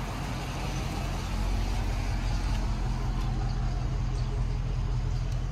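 Dodge Charger Scat Pack's 6.4-litre HEMI V8 rolling slowly at low revs as the car is driven into a shop bay, a steady deep rumble. The exhaust is still stock, with its mid mufflers fitted before the delete.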